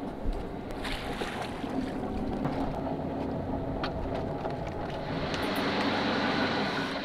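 Sailboat's inboard engine running steadily, with wind and water noise over it.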